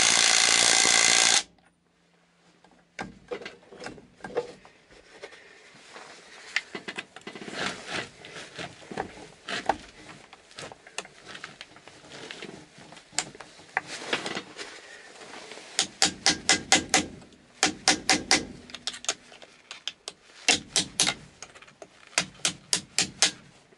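A cordless drill spinning a socket on the steering wheel nut of an IFA W50 truck runs loudly and steadily for about a second and a half, then stops suddenly. After that come scattered metallic clicks and knocks of hand tools against the steering column hub, with several short runs of quick sharp taps.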